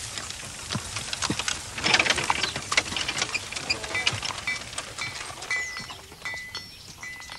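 Horse-drawn hay wagon rolling past: a dense clatter and crackle of wheels and hooves on the road, loudest about two seconds in. Short high chirps repeat through the second half.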